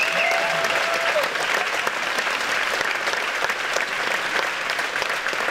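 Theatre audience applauding: dense, even clapping that eases off slightly toward the end.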